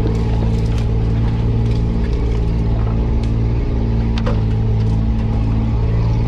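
Off-road 4x4's engine running steadily at low revs, heard from inside the cabin, with branches scraping and ticking against the windscreen and bodywork a few times.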